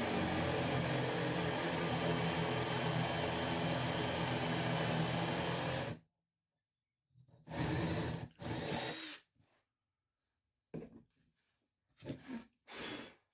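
Electric drill running steadily at speed, working into wood, then stopping suddenly about six seconds in. It is followed by a few shorter, scratchier bursts of work on the wood.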